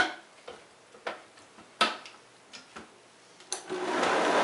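A few sharp plastic clicks and knocks as the lid is fitted onto a Vitamix blender container. About three and a half seconds in, the Vitamix motor starts and runs loudly, rising and then holding steady as it blends a thick cashew filling.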